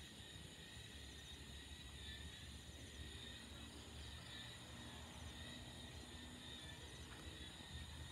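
Faint night chorus of insects such as crickets, a steady high-pitched trilling over a low rumble.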